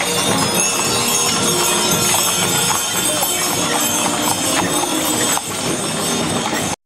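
Hooves of a Haflinger draft-horse team clip-clopping on asphalt at a walk, with the chains and fittings of the harness jingling and clinking. The sound cuts off suddenly near the end.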